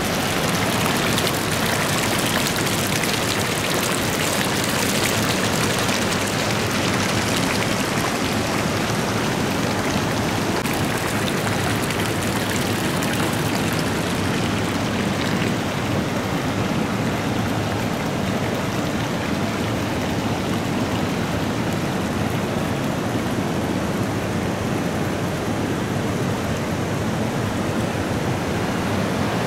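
Steady rush of flowing water. The hiss at the top softens about halfway through.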